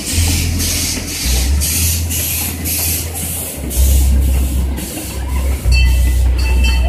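Steam locomotive exhaust chuffing steadily as the engine pulls its train past, about three hissing chuffs a second over a heavy low rumble that comes and goes. Near the end a thin high ringing squeal joins in.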